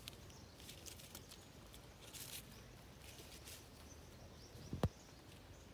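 Faint, intermittent rustling of dry leaf litter as a young monkey steps and picks through fallen leaves. One short dull thump just under five seconds in.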